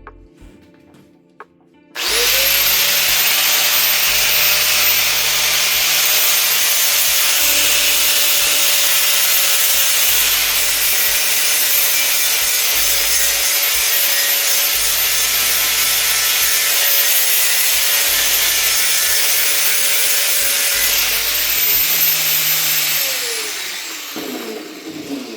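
Handheld power tool grinding or sanding the surface of a cast-iron pot lid, raising dust. The motor starts suddenly about two seconds in, runs at a steady pitch with a harsh grinding hiss, then is let go and winds down near the end.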